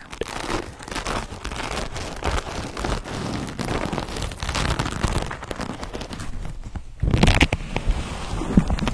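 Fluffy pad rubbed and brushed against a microphone's grille: a dense, crackly scratching. It grows louder and harsher for a moment near the end, as a fluffy fabric piece is pressed and rubbed over the top of the mic.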